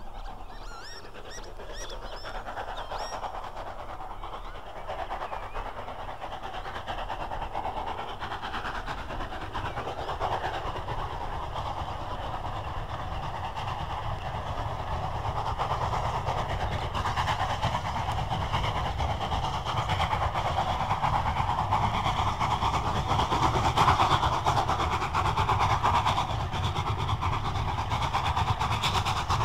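LMS 'Jubilee' class 4-6-0 steam locomotive No. 45617 Mauritius working hard up a steep gradient without a banking engine, hauling a passenger train; its exhaust beats grow steadily louder as it approaches slowly.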